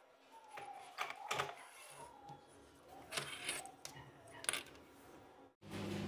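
Small clicks, rattles and rustles of hands handling a homemade amplifier circuit board with its wires, alligator clips and audio-jack lead. A steady low hum starts abruptly near the end.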